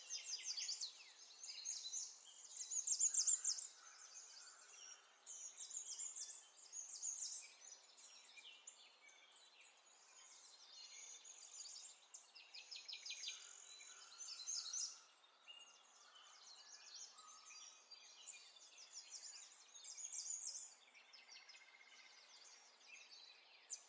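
Small birds chirping and trilling in short, high repeated phrases every second or two, over a faint steady hiss.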